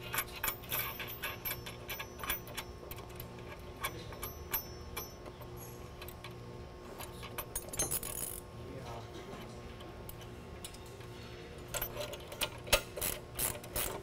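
Small metal clicks and clinks of bolts, nuts and washers being handled and hand-threaded through a steel bearing plate. Near the end, a quick run of clicks as a wrench snugs the bolts up, not fully tightened.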